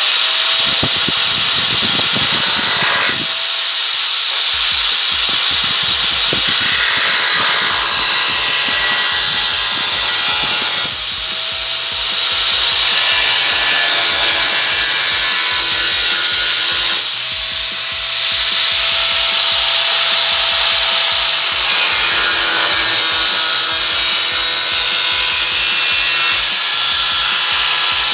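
Electric angle grinder with a used disc grinding into rusty steel car body panel, throwing sparks: a loud, steady grinding noise. It eases off twice, about a third and about two-thirds of the way through, when a steady motor whine shows through.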